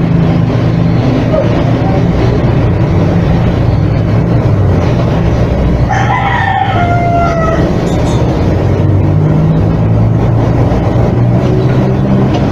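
Steady loud machine hum and whir, with low droning tones. About six seconds in, a rooster crows once, a call of about a second and a half that falls in pitch at the end.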